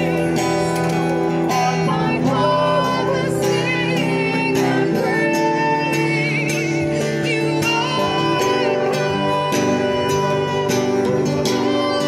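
Christian worship song performed live: a singer holding long, wavering notes over a strummed acoustic guitar.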